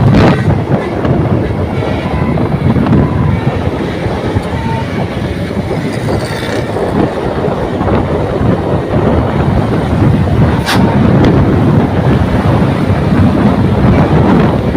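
Loud, steady running noise of a large bus close by: engine and tyre rumble with no horn sounding, and a single sharp click about two-thirds of the way through.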